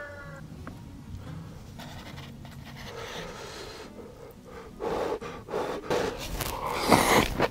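Instant cup noodles being eaten with breathy slurps, which start about halfway in and get louder toward the end.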